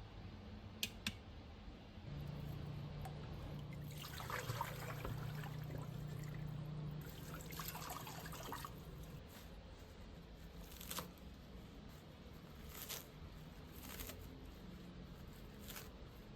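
Water trickling and pouring in two short spells in a kitchen, with a low hum for a few seconds and several light clicks and knocks of handling between them.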